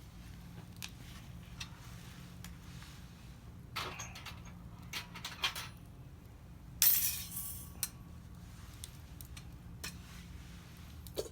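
Scattered light clicks and clinks of small hard objects, with a few quick ones about four to five seconds in and one louder brief clatter about seven seconds in.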